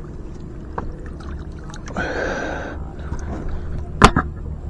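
Water splashing briefly about two seconds in, then one sharp knock near the end, over a steady low hum.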